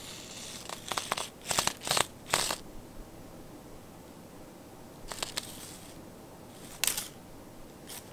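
Pink feather-and-pompom lure of a cat wand toy swishing back and forth over the carpet as it is whipped side to side: a quick run of rustling swishes in the first two and a half seconds, then single swishes about five and seven seconds in.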